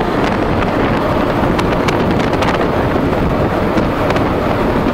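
Suzuki Inazuma 1200 motorcycle riding along the motorway: steady wind rush buffeting the microphone over the inline-four engine's running.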